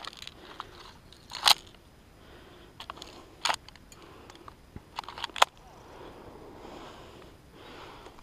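Footsteps crunching through dry grass, with several short, sharp clicks: the loudest about a second and a half in, others around three and a half and five seconds in.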